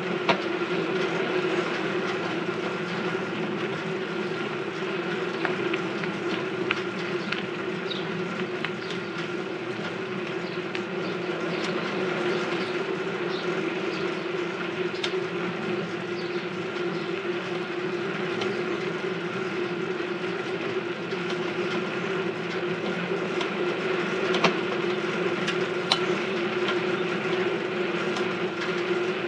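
A rented bike's noisy running gear rattling and whirring steadily as it is ridden, with a steady hum and scattered clicks.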